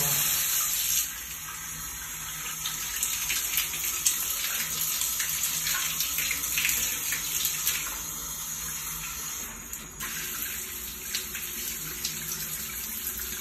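Water running steadily from a wall-mounted chrome bath-shower mixer tap, a little quieter from about a second in, with small scattered splashes.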